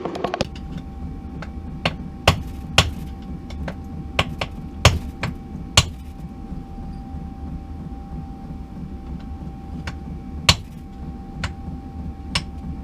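About a dozen sharp metal knocks and taps at irregular intervals, from a screwdriver knocking the cylinder barrels of a Triumph T90 engine to free them. A faint steady hum runs underneath.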